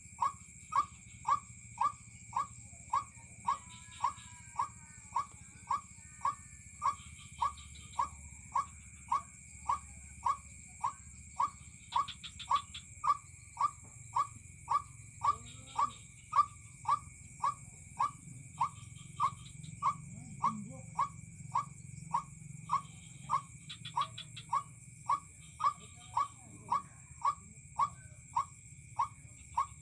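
White-breasted waterhen call repeated monotonously, short evenly spaced notes about two a second, over a steady high buzz of insects.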